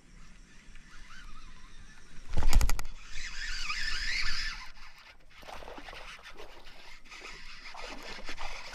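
A cast with a Shimano Metanium DC baitcasting reel. About two and a half seconds in, the rod swings with a short burst of rapid thuds. Then the reel's DC-braked spool whines as the line pays out, its pitch wavering, for about a second and a half, and after that come quieter clicks and rustles of reeling in.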